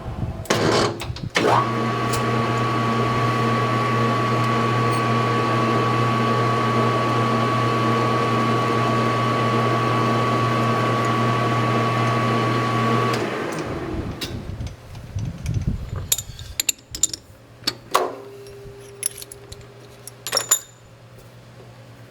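Metal lathe switched on about a second and a half in, running steadily with a low hum and a thin high whine while a transfer punch tip is recut, then switched off and spinning down. Afterwards come scattered light clicks and taps.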